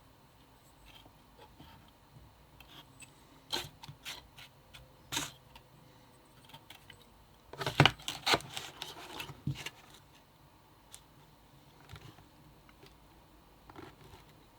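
Small metal heatsink parts being handled: scattered clicks and clinks, with a dense burst of clattering about eight seconds in.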